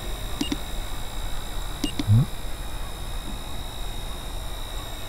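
Two short electronic beeps from the radio-control transmitter as its trim is clicked, about half a second and two seconds in, each with a brief low voice-like sound. A steady faint high whine runs underneath.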